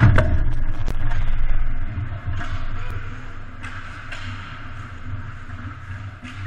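Ice hockey play close to the goal: a loud knock at the start, followed by about two seconds of loud low rumbling, then a few short scrapes of skate blades on the ice as players move around the net.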